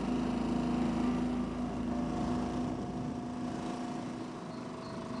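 Small boat's motor running steadily underway, a constant droning hum whose pitch drifts slightly.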